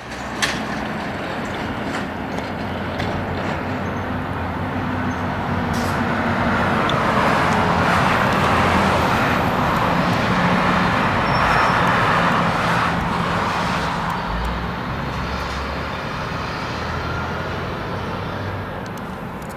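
Distant Norfolk Southern diesel locomotive leading an intermodal freight train on approach: a low engine hum under a steady rushing noise that swells in the middle and eases off again.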